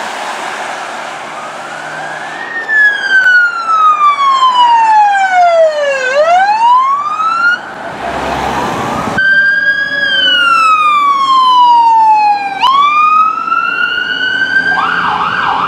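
Electronic emergency-vehicle sirens in wail mode, loud. A police SUV's siren sweeps slowly down in pitch and back up. After a cut, an ambulance's siren wails slowly down and then swings quickly back up near the end.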